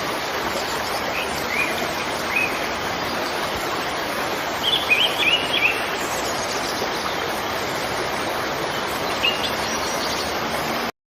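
Steady rush of a waterfall, with birds chirping over it: a few single chirps about two seconds in, a quick run of them around five seconds, and one more near the end. The sound cuts off abruptly just before the end.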